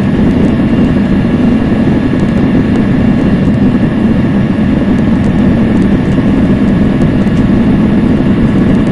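Cummins ISL9 inline-six diesel engine of a NABI 40-SFW transit bus, heard from inside at the rear of the bus, running steadily with a deep drone.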